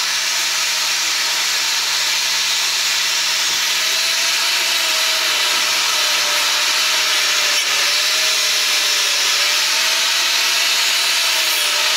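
Angle grinder with a sanding disc running steadily against the steel frame of a Suzuki 400 quad, sanding off rust and old paint. A steady whine wavers slightly in pitch as the disc works the metal.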